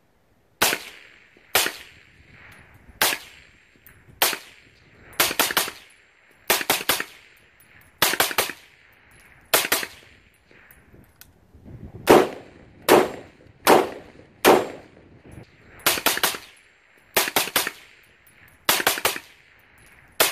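Suppressed gunshots from an AR-style rifle fitted with an AAC 556-SD suppressor: about two dozen shots, fired singly and in quick strings of two or three, each followed by a short echo off the range.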